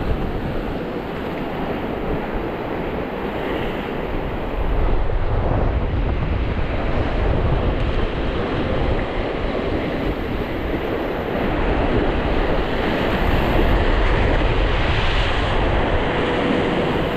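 Sea surf washing onto the shore with wind buffeting the microphone; the low wind rumble grows heavier about five seconds in.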